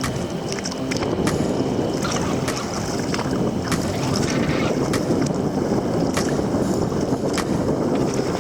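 Water sloshing and splashing around a sea kayak, with wind buffeting the microphone and short splashy knocks scattered throughout.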